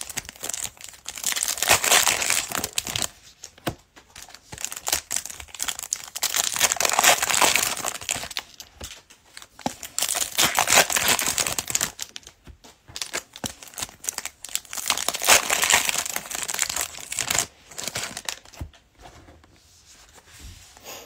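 Foil wrappers of Prizm basketball card packs being torn open and crumpled, in repeated crinkly bursts every few seconds, dying down near the end.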